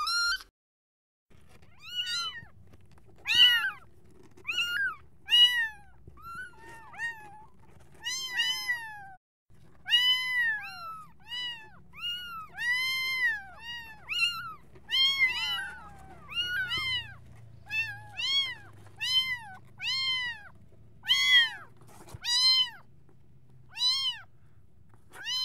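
Recorded newborn kitten mews: a long run of short, high-pitched calls, each rising and then falling in pitch, about one a second, over a faint low steady hum.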